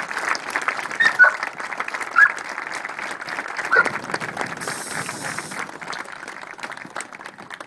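Crowd applauding, with a few short high cheers breaking through; the clapping thins out near the end.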